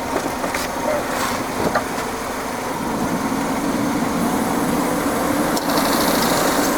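Ford Focus engine idling with the air-conditioning system running, a few light clicks early on. A high hiss joins about four seconds in, as the refrigerant can is opened and starts flowing into the low-side line.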